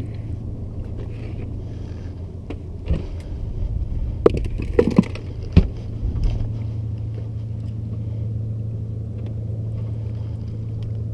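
A boat's engine idling with a steady low hum, while a knife chops bunker on a cutting board with about four sharp knocks around the middle.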